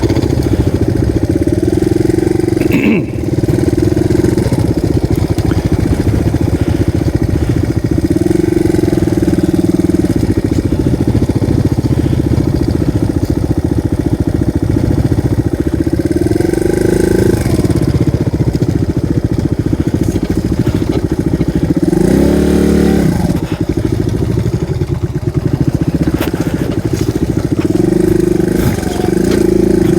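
Dual-sport motorcycle's single-cylinder four-stroke engine running under way on a dirt trail, its revs rising and falling with the throttle, with short climbs in pitch at about 8, 17 and 23 seconds in.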